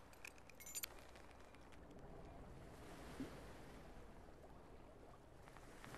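Near silence: faint outdoor ambience, a low steady rumble with a few soft clicks in the first second.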